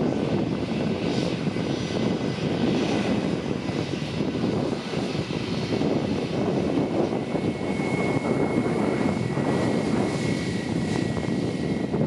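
Airbus A320-family airliner taxiing, its jet engines running at low thrust with a steady rumble. A thin, steady high whine comes in a little after halfway.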